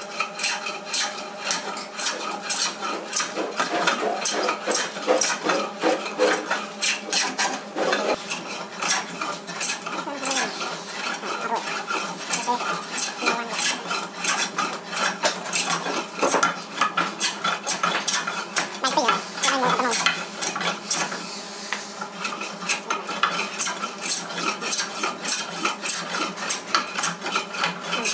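Handmade wooden hand plane pushed stroke after stroke along a board, its iron shaving off curls of wood with a rasping scrape on each pass.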